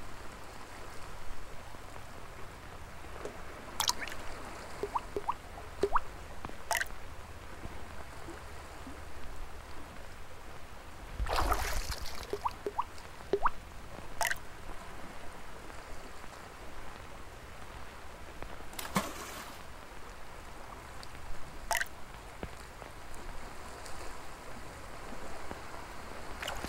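Gentle water lapping with scattered drips and small plinks, and a few sharp clicks. About eleven seconds in there is a louder burst of noise lasting about a second.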